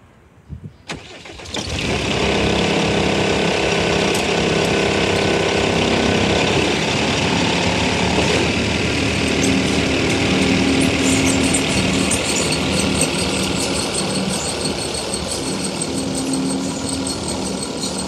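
Case SR270 skid steer's diesel engine cranking and catching about a second and a half in, then running steadily. The machine drives off in the second half, with the engine note shifting and a high whine coming in.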